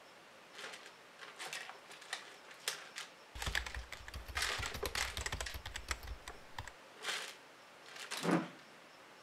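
A mouse scrabbling inside a clear plastic bottle trap: quick clicks and scratches of its claws on the plastic and in the bait, in short separate bursts with a dense run of scratching through the middle.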